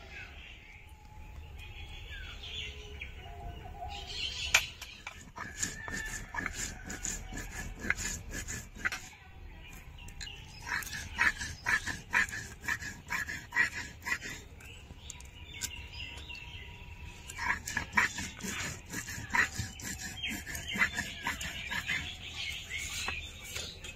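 Runs of rapid knocks from hand food-preparation work (spices being ground or onions chopped), broken by short pauses, with birds chirping in the background.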